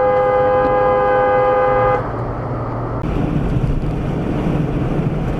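A car horn held in one long, steady two-tone blast that cuts off about two seconds in. It is followed by road noise and a low engine hum from inside a moving car.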